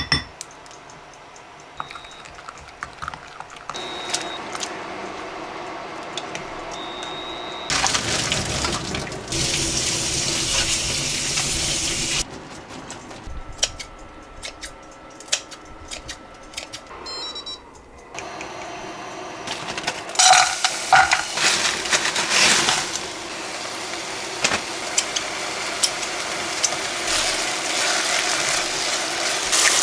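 Kitchen sounds: a tap running for a few seconds, with scattered clinks and knocks of dishes and utensils.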